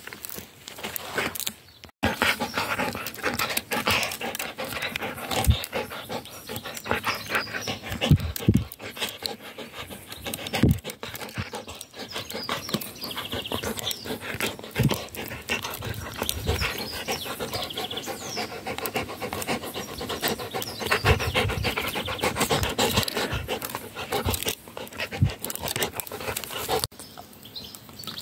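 Golden retriever panting hard and fast, with a few sharp knocks now and then.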